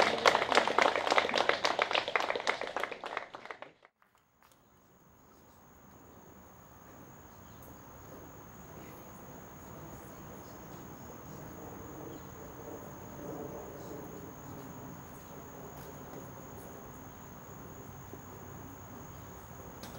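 Guests applauding, which cuts off abruptly about four seconds in. Then a quiet outdoor background with a steady, high insect drone like crickets.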